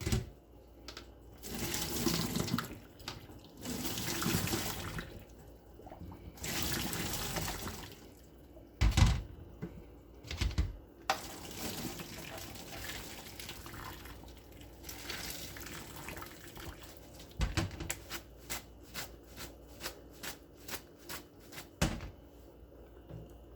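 Water running into a kitchen sink in three short bursts, followed by a few thuds and then a quick run of sharp clicks near the end.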